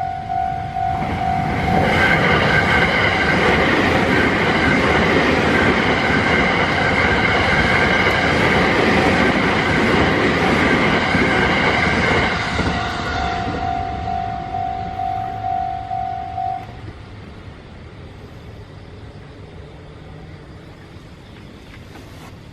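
A train passes a Japanese level crossing at speed. Its wheels and running gear are loud for about twelve seconds. The crossing's warning bell rings at the start, is drowned out while the train goes by, is heard again after it, and stops about sixteen seconds in.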